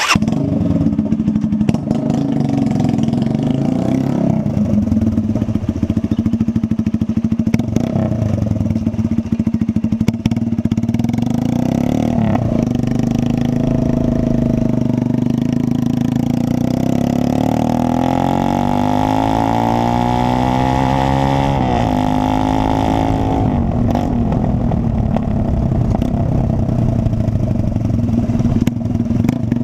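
Horizon 190 motorcycle engine running through a Roncar exhaust with no muffler, loud and open. It idles with short throttle blips, and about two-thirds of the way through it revs up for several seconds, then falls back to idle.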